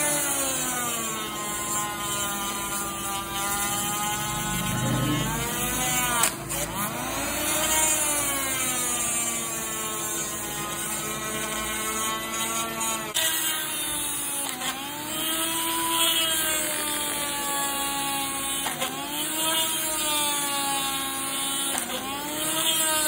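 Homemade mini drill's RS560 DC motor whining as the bit drills holes, first in wood, then in a plastic sheet. The pitch sags each time the bit bites and loads the motor, then climbs back as it frees, over and over.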